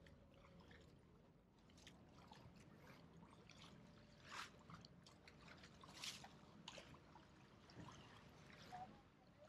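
Faint water lapping and trickling, with a few sharper splashes, the loudest about four and a half and six seconds in.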